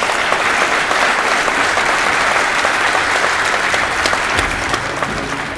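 Large audience applauding: steady, dense clapping that eases slightly near the end.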